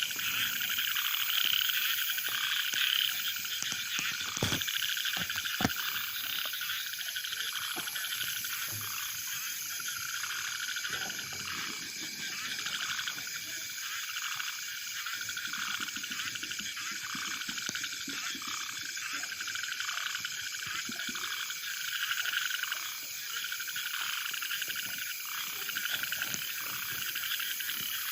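A dense night chorus of frogs calling together in a farm field: a steady, fast-pulsing, high-pitched din that never lets up, with a couple of brief knocks about five seconds in.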